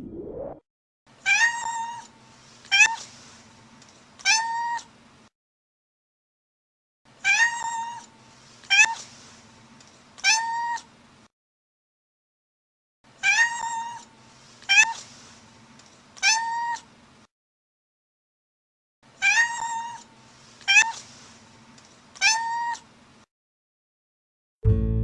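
Domestic cat meowing: a set of three meows in a row, repeated four times with short silences between.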